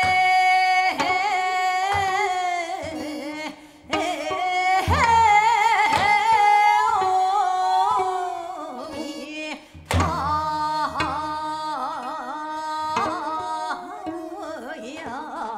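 A woman singing Seodo sori, the folk song of Korea's northwestern provinces, holding long notes with a wide, shaking vibrato and sliding between pitches, with short breaks about three and a half and nine and a half seconds in. A few low drum strokes sound under the voice.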